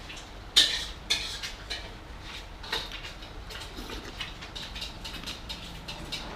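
Spoon and chopsticks clinking against a noodle-soup bowl: a few sharp clinks in the first three seconds, then lighter ticking and tapping.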